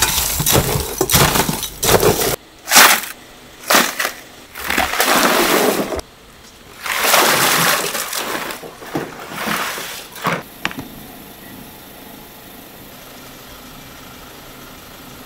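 Ice being scooped with a stainless-steel bowl, crunching and clattering in irregular bursts, and ice and water poured from a bucket into a water-filled tub with a splash. The noise drops to a quiet steady background for the last few seconds.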